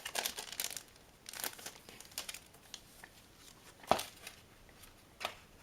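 Paper packaging and small instruction booklets being handled, rustling and crinkling in short bursts, with a sharp tap about four seconds in.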